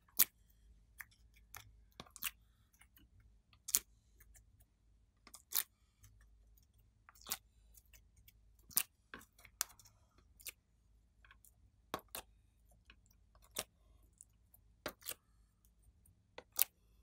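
Sharp plastic clicks and taps, one every second or so with a few quick pairs, as clay cubes are pushed out of a flexible plastic mold and set down in a glass dish.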